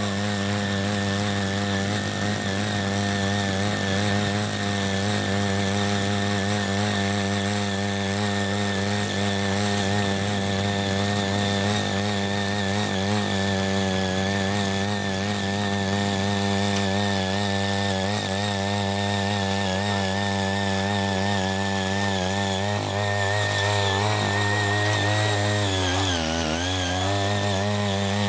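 Small engine of a CY80 mini rotary tiller running under load as its eight tines churn hard, never-tilled soil. The engine note wavers steadily and sags briefly in pitch near the end before recovering.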